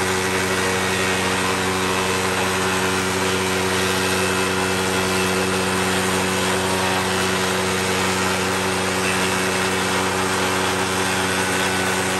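Table-mounted spindle moulder (wood shaper) running, its motor giving a steady, even hum while the spinning cutter head cuts into a wooden board fed by hand along the fence.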